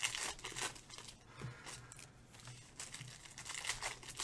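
Shiny wrapper of a Panini Chronicles baseball card pack being torn open and crinkled by hand, in a series of short, irregular rips and crinkles.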